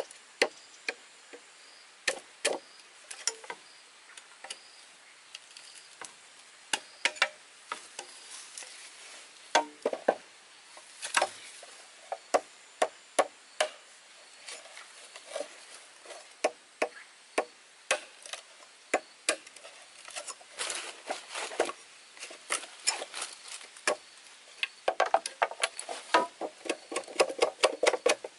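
Machete blade striking and cutting into green bamboo poles: a run of sharp, irregular knocks that come quicker in the last few seconds, with a rasping scrape of blade on bamboo near the end.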